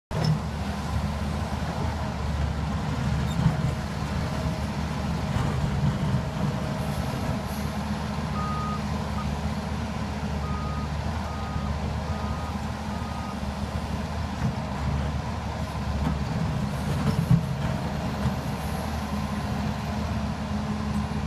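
Doosan DX350LC-3 excavator's diesel engine running steadily under load while it digs. A backup alarm gives a short string of beeps a little before halfway through. Two sharp knocks stand out, one a few seconds in and one near the end.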